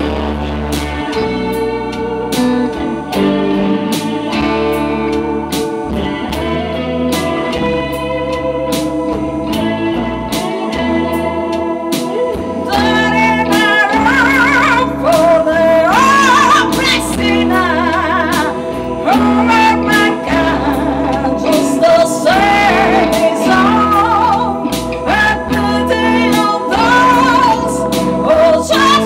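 A live blues band playing together: drum kit, electric guitars and a keyboard organ holding sustained chords. A singer comes in about twelve seconds in and sings over the band.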